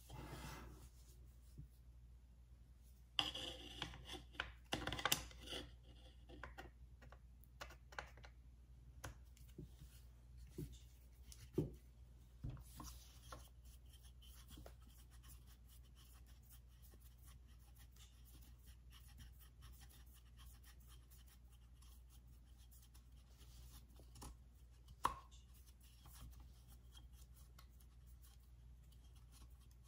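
Quiet handling sounds of a 3/16 Allen key working the pistol-grip screw loose on a Ruger PC Charger and the grip being pulled off: scattered scrapes, ticks and light knocks. They are busiest a few seconds in, with a sharper knock just before the middle and another near the end.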